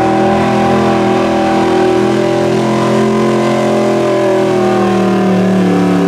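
Altered stock pulling truck's engine running hard at high revs under load during a pull, its pitch held nearly steady with slight wavers and sagging a little near the end.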